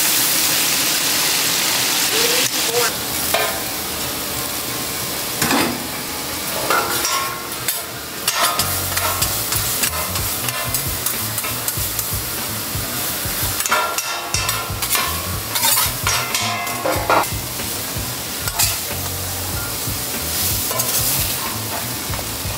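Food sizzling on a steel flat-top griddle, with a metal spatula repeatedly scraping and chopping fried fish and rice against the steel.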